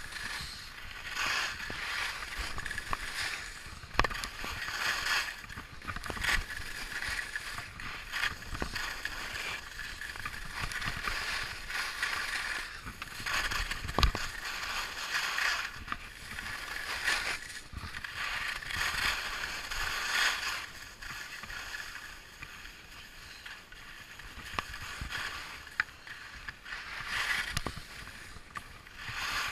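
Skis scraping and hissing over tracked piste snow, swelling and fading with each turn, with a few sharp knocks, the loudest about 14 seconds in.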